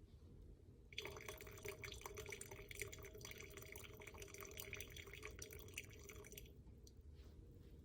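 Liquid pouring, faint, starting about a second in and stopping suddenly about five seconds later.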